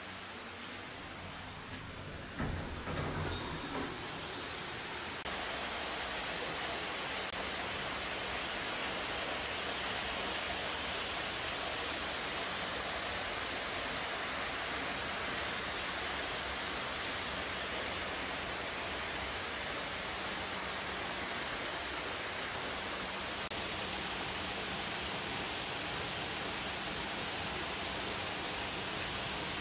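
Waterfalls of hot-spring water pouring into an outdoor rock bath: a steady rush of splashing water. It is quieter at first and grows louder about five seconds in, then holds level. A few brief low knocks come about three seconds in.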